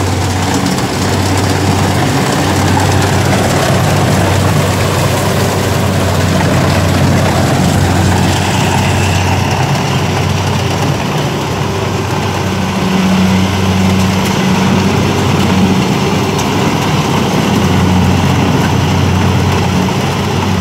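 Kubota rice combine harvester's diesel engine and threshing machinery running steadily under load as it cuts rice and crawls through deep mud, a low engine hum swelling and easing slightly over a constant mechanical noise.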